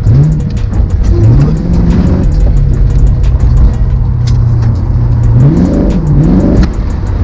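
A rally car's engine revving up hard and dropping back again and again as it is driven over a dirt course. It holds a steadier note in the middle, then the revs rise and fall quickly near the end.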